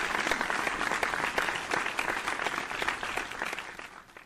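Applause: many hands clapping, fading out near the end.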